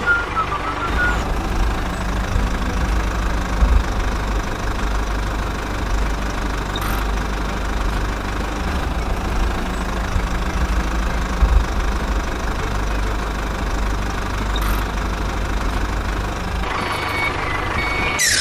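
Tractor engine running steadily with a low, even rumble. A brief falling swoosh comes at the very end.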